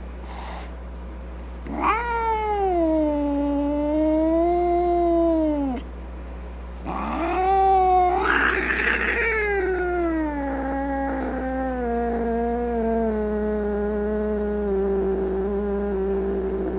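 Domestic cat yowling in two long, drawn-out wavering calls: the first about four seconds long, the second about ten seconds, sliding slowly down in pitch, with a harsh rough stretch near its start. The angry, threatening yowl of a cat ready to fight.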